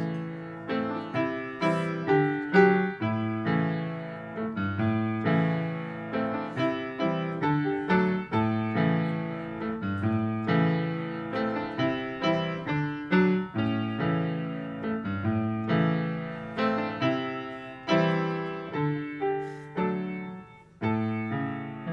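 Solo piano music: notes and chords struck at a moderate pace, each fading away, with a short break about a second before the end.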